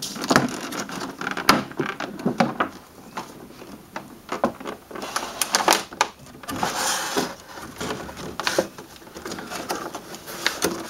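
Packaging being opened and unpacked by hand: an irregular run of short knocks and clicks with stretches of scraping and rustling.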